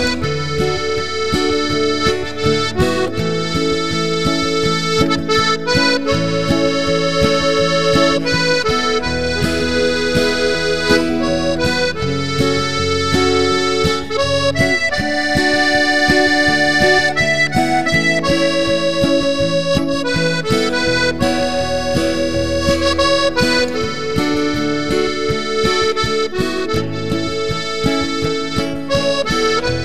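Background instrumental music: a melody of held notes over chords and a bass line, playing steadily throughout.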